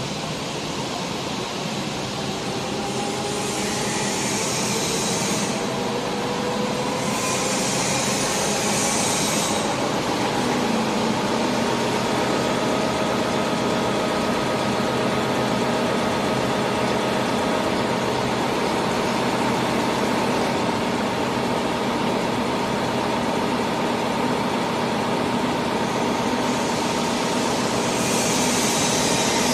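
Servo-driven four-colour flexo label printing machine running. Its whine rises in pitch over the first ten seconds or so as it speeds up, then holds steady. A few spells of high hiss come and go.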